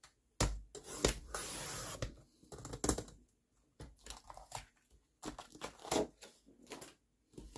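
Sliding paper trimmer cutting cardstock: a click about half a second in, then a scratchy hiss of about a second as the blade runs along the cut, followed by scattered clicks and rustles of the card being handled and moved on the trimmer.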